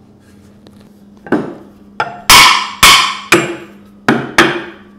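A run of about six sharp knocks, starting about a second in and coming at uneven intervals, each fading with a short ring.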